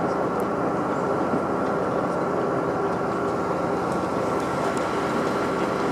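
Steady engine drone with a constant high hum on top, unchanging in level or pitch.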